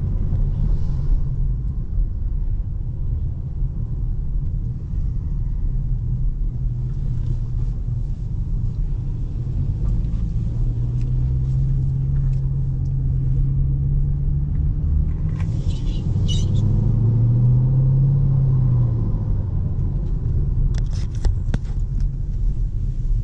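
Car engine and road rumble while driving, the engine note rising twice as the car picks up speed, with a few brief clicks.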